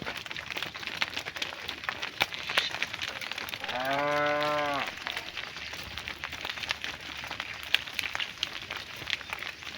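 A cow moos once: a single call of just over a second at a steady pitch, about halfway through. Scattered clicks and crackles run underneath.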